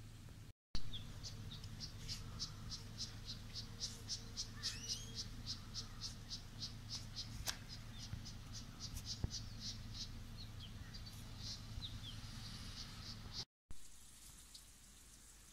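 An insect chirping in a steady rhythm, about three short high chirps a second, over a low steady hum, with a few faint bird chirps. The sound drops out briefly near the start and again near the end.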